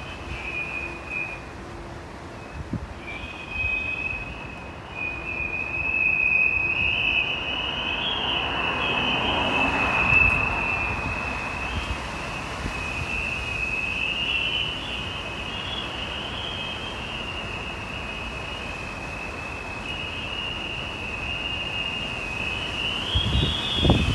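Aluminium composite facade panels whistling in the wind: a high, wavering whistle that holds on and off through gusts of wind noise, with a stronger gust about ten seconds in.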